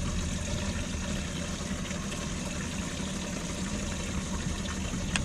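Boat live-well pump running, with water pouring and splashing steadily over a low hum.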